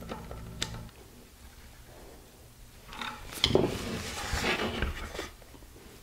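A small hand screwdriver turning metal Festool Domino DF 500 knock-down connector fittings into a plywood panel: a few light clicks and scrapes, a pause, then a couple of seconds of rubbing and handling noise.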